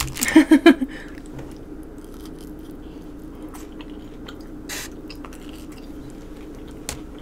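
Close-miked chewing and mouth sounds of someone eating, with scattered small wet clicks and smacks.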